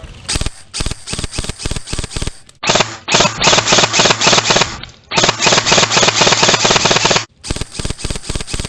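Airsoft guns firing: scattered single shots, then two long strings of rapid shots, each about two seconds, with a short gap between them, then more single shots near the end.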